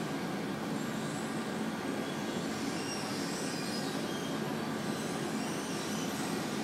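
Renfe Cercanías Civia electric commuter train, a steady low rumble with faint high-pitched squeals in the middle.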